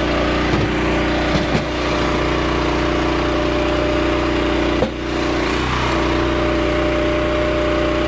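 Log splitter's gas engine running steadily under hydraulic load, with a brief dip about five seconds in.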